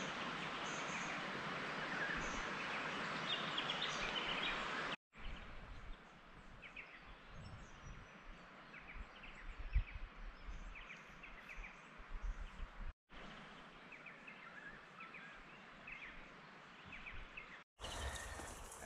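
Outdoor bush ambience: scattered short bird chirps over a steady hiss, louder and noisier for the first five seconds, then quieter. Brief dropouts to silence split it into three short pieces.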